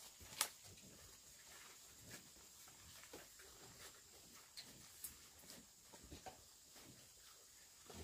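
Near silence: faint hiss with scattered soft ticks and rustles, and one sharp click about half a second in.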